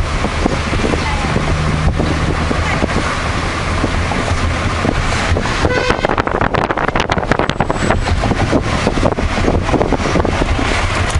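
Cabin noise of a Volkswagen taxi under way in city traffic: a steady low engine and road rumble with wind rush. From about halfway through, a run of short knocks and rattles joins it.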